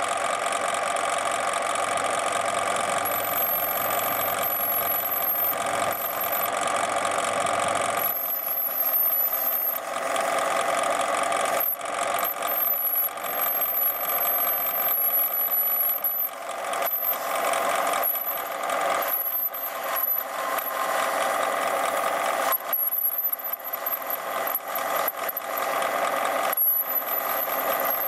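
Metal lathe running with a steady whine of several tones while a lathe tool on a hand-swung ball-turning attachment cuts a metal blank into a sphere, with uneven cutting noise over the whine. This is the finishing pass on a blank that was roughed out beforehand.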